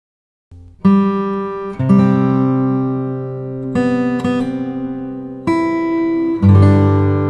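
Background music: acoustic guitar strumming chords, starting about half a second in after a brief silence and changing chord every second or two.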